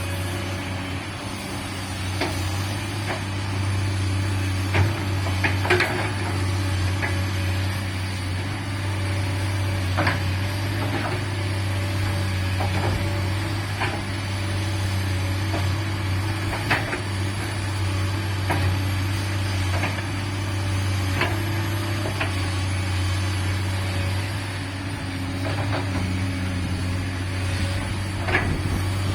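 Komatsu PC200-8 excavator's six-cylinder diesel engine running steadily under work, with scattered metallic clanks and knocks from the machine's tracks and arm.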